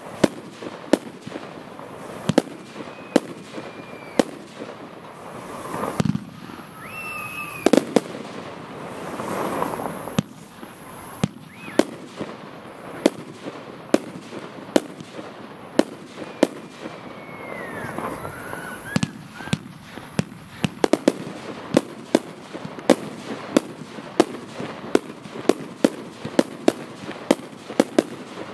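Consumer fireworks cake (F2 battery) firing a string of shots with sharp bangs and crackle, a few whistling tones gliding through. The bangs come faster in the second half, about two or three a second.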